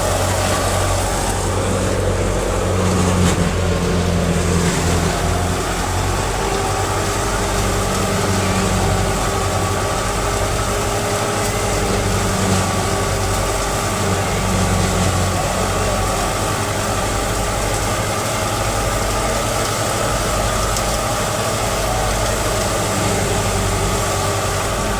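Engine of farm harvest machinery running steadily at a constant speed, an even low hum that holds throughout.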